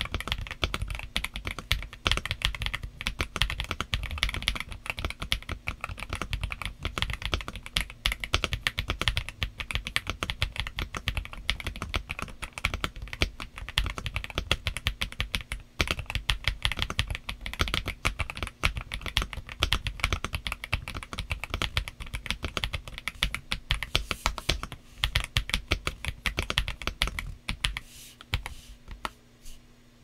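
Aula Wind F87 mechanical keyboard with Leobog Graywood V3 linear switches and Cherry-profile PBT keycaps, typed on quickly in a dense, steady stream of keystrokes. The typing thins out and gets quieter near the end.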